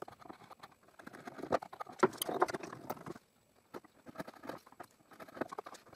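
Wood chisel cutting an oak tenon to width: irregular scraping and small cracking taps of steel on wood, busiest from about one and a half to three seconds in, with a brief pause just after.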